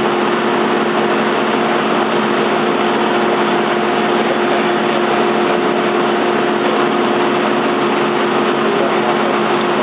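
Toyoda CNC lathe running with its spindle spinning: a steady machine hum with a few constant pitched tones over a rushing noise.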